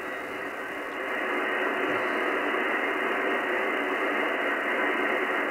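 Radio receiver's speaker hissing with band noise while tuned across the 27 MHz CB band in lower sideband: a steady hiss held within the narrow voice range of the sideband filter, growing louder about a second in, with no clear voice coming through.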